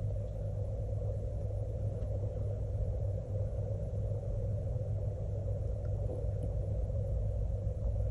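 A steady low hum that holds unchanged throughout, with a fainter band of higher noise above it and no distinct knocks or clicks.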